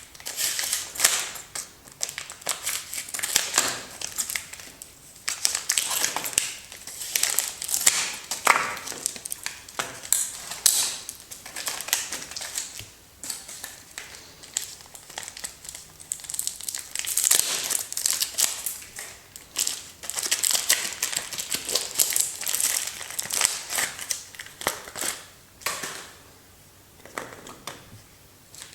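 Soap packaging crinkling and crackling as it is handled and torn open by hand, in irregular bursts of rustling.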